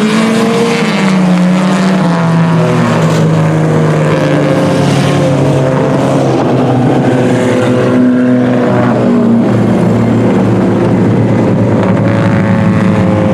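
Several IMCA Sport Compact race cars' four-cylinder engines running at race speed together, their overlapping engine notes drifting slowly up and down as the cars go around the track.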